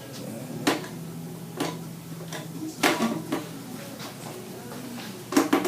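Sharp cracks of neck joints popping under a seated chiropractic adjustment: single cracks spaced out, then a quick cluster of three or four near the end.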